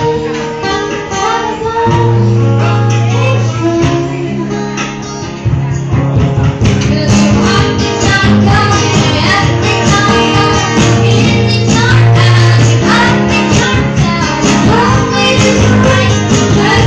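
Live acoustic song: a strummed acoustic guitar with a boy and a man singing through microphones over a PA. The strumming gets fuller and louder about five and a half seconds in.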